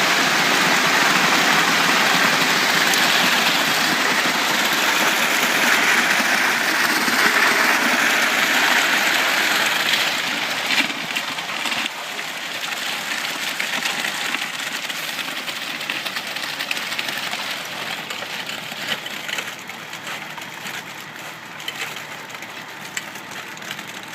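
Wet concrete sliding down a concrete truck's chute: a steady gritty rushing that eases off about ten seconds in and continues quieter, with scattered small clicks of stones.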